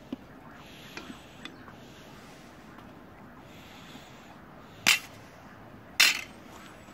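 A metal slotted skimmer knocked against the rim of a cast-iron kazan: two sharp clanks about a second apart near the end, after a few light clicks.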